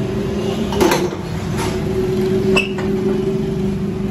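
Sharp metal clinks and knocks at a lathe as a crankshaft is clamped in the chuck with a chuck key and the chuck guard cover is closed, the loudest about a second in. A steady electric motor hum runs underneath.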